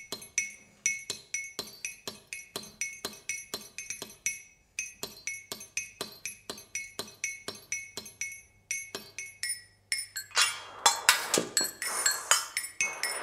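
Rhythmic percussion in live stage music: light clinks struck about four times a second, each with a short high ring. About ten seconds in, the strikes turn louder and busier into a dense clatter.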